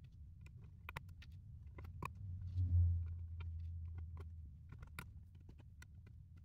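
LEGO plastic pieces clicking and tapping as small parts are pressed into a brick-built base. A low rumble from the model being handled comes in about two seconds in and is loudest near three seconds.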